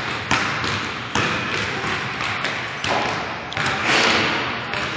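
Basketball being dribbled on a gym floor: a string of thuds about once a second, echoing in the large hall.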